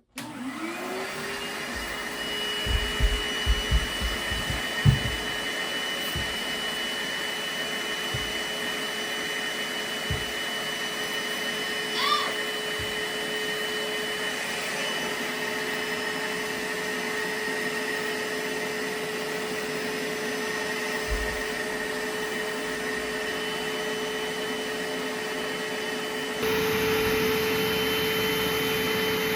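Vacuum cleaner motor spinning up and then running steadily with a high whine. There are a few low knocks in the first seconds, and the pitch and loudness step up slightly near the end.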